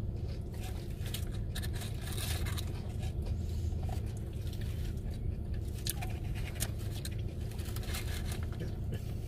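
Mukbang eating sounds: chewing, and a plastic fork scraping and clicking against a paper food tray of poutine, in short irregular strokes. A steady low hum runs underneath.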